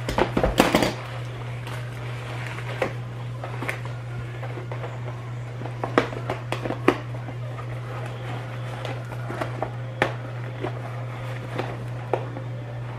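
Paper and plastic takeout packaging rustling and crinkling as it is handled, with scattered short clicks and a denser flurry about half a second in. A steady low hum runs underneath.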